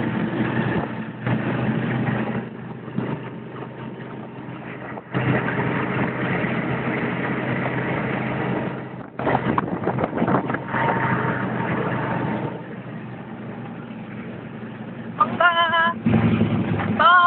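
Motorcycle tricycle engine running with road and wind noise while riding along, growing louder and quieter as it goes. Near the end a short, high, wavering pitched sound comes twice.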